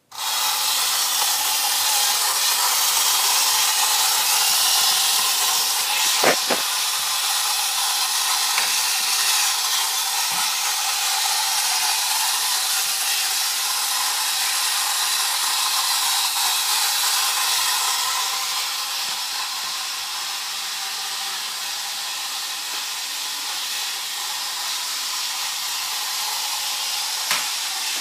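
Battery-operated tin-toy Ford Thunderbirds by Nomura running across a wooden floor: a steady hissing whir of the toy's motor, gears and wheels, switching on suddenly at the start. A sharp metallic knock with a brief ring about six seconds in, and a small click near the end.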